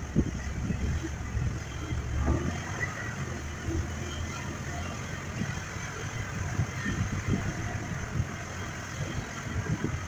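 Truck carrying a full load of cut firewood, its engine running at low speed over a rough woods trail, with irregular thumps and knocks as it goes over bumps.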